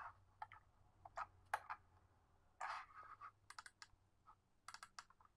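Faint, scattered clicks and taps of computer keys and buttons, a dozen or so, with a couple of quick runs of three or four near the end, over a faint low hum.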